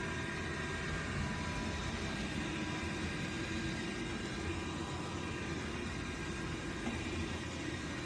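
MOVA S10 Plus robot vacuum running, a steady fan hiss with faint high steady whine tones over it.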